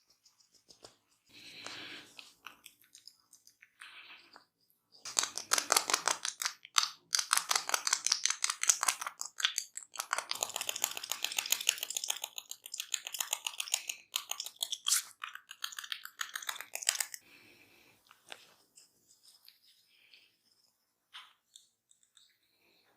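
Close-miked crackling and rubbing from a barber's hands massaging the head and ears. It starts as a few short bursts, then turns into a thick run of rapid crackles for about twelve seconds before fading.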